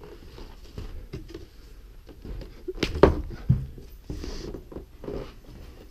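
Footsteps and scuffs on a snow-dusted wooden deck, with a few sharper knocks, the loudest about three seconds in.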